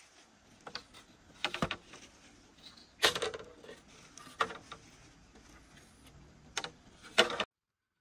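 Irregular knocks and clatters, a few sharp strikes among lighter rattling, the loudest about three seconds in and another near the end. The sound then cuts off abruptly.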